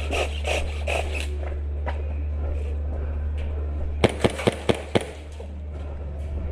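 Airsoft gun firing five quick shots in about a second, over a steady low hum.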